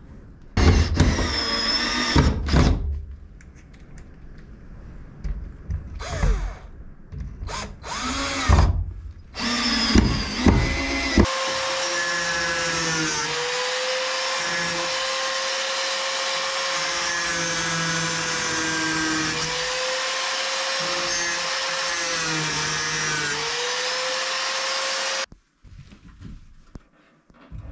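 A cordless drill runs in several short bursts over the first ten seconds or so. Then a corded handheld power tool runs steadily on the plywood wall for about fourteen seconds, its motor pitch dipping briefly a few times as it takes load, and cuts off suddenly.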